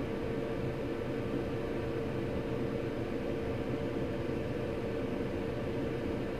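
Steady motor hum and hiss with one constant mid-pitched tone, the running noise of a machine on the repair bench.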